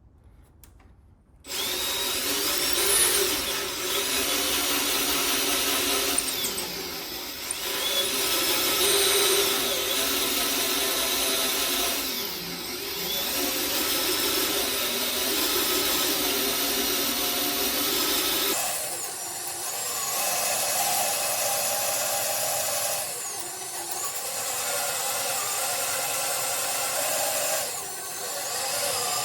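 A Makita electric drill running, boring upward into a broken bolt. It starts about a second and a half in, and its whine sags and recovers several times as pressure on the bit is eased on and off.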